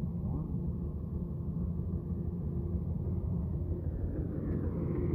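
Rice combine harvester's engine running steadily, a low even drone with a constant hum.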